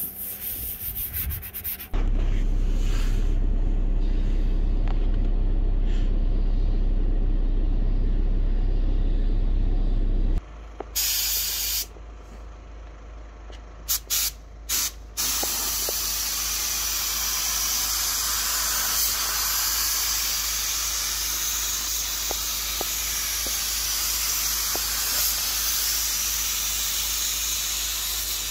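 A tack rag rubs over the panel, then a loud, steady low drone runs for several seconds. In the second half, an air-fed gravity spray gun hisses steadily as it sprays lacquer.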